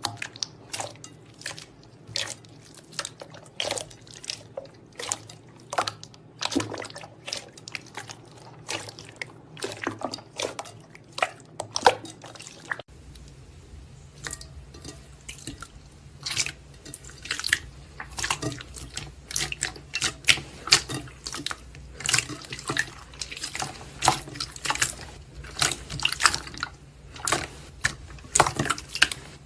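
Slime being squeezed and worked by hand, making a dense run of irregular wet clicks and pops, several a second. The background tone changes abruptly about 13 seconds in, as at a cut to another clip.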